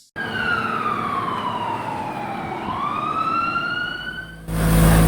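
Fire truck siren wailing: one slow fall in pitch, then a rise, lasting about four seconds. Near the end it cuts off suddenly into a louder steady rumble with a low hum.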